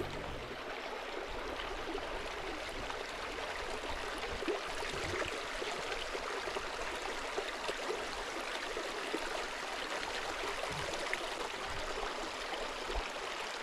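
A small stream running steadily, a continuous rush of water over a shallow bed.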